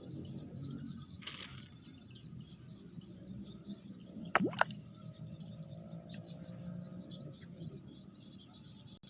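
Steady chorus of crickets and other insects in a rice paddy, with a brief, sharp, rising swish about halfway through.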